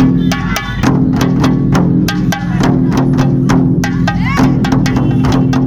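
Loud festival music: fast, sharp drum strikes about five a second over steady low droning tones.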